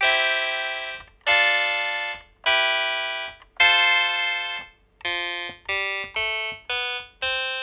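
Yamaha Portasound PS-2 portable electronic keyboard playing a built-in voice. It plays nine notes, each starting sharply and then fading: four of about a second each, then five quicker ones, the last left to die away.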